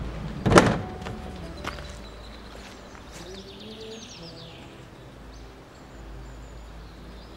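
A single sharp knock about half a second in, then soft background music with held low notes and a short falling high trill around three to four seconds in.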